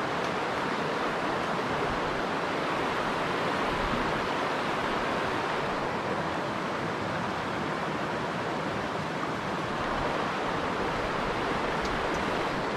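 Shallow rocky mountain stream running over stones: a steady, even rush of water.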